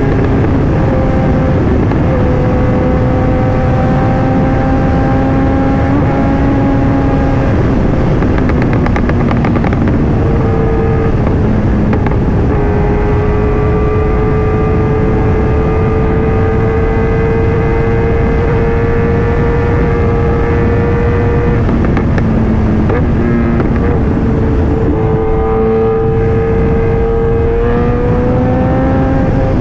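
Kawasaki ZX-10R inline-four engine running under way at a steady cruise. Its pitch drops and climbs again a few times, around a third of the way in and again near the end. Wind rumble on the helmet microphone lies under it.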